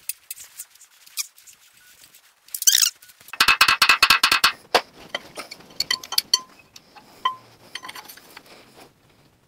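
Ratchet wrench turning a head stud out of a cast-iron Ford flathead V8 block, clicking in a quick run of about a dozen clicks a second about three and a half seconds in. Scattered metallic clinks and taps of the tool against the block follow.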